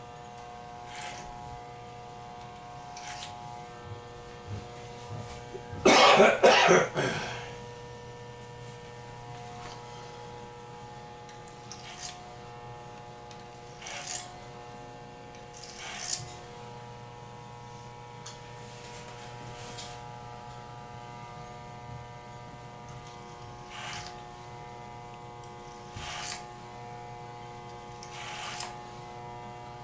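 Corded electric hair clippers humming steadily as they are run over a comb through thick hair, with short crisp bursts each time a pass cuts through the hair. A loud rough burst, like a cough, comes about six seconds in.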